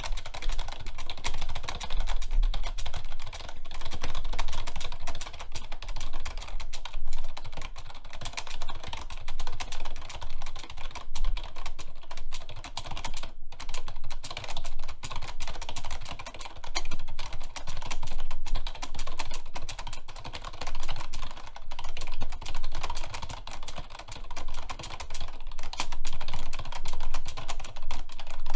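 Computer keyboard typed very fast and hard in a continuous stream of key clicks during a one-minute typing speed test, with a brief pause about halfway through.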